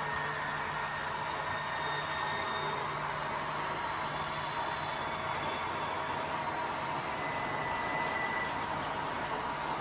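Loaded HO-scale coal hopper cars rolling steadily along curved model track, with steady wheel-on-rail noise and faint, intermittent high-pitched squeals from the wheels.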